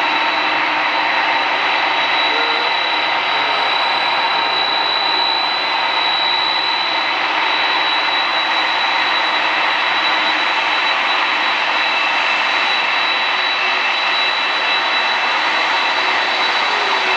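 Jet airliner engines running steadily: a loud, even rush with a high, steady whine held throughout.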